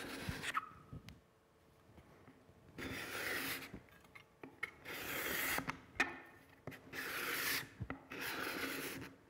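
A freshly sharpened, burnished steel cabinet scraper is drawn across the edge of a hardwood board in about five short scraping strokes with brief pauses between them. Its hooked edge is cutting shavings, the sign that it is sharp.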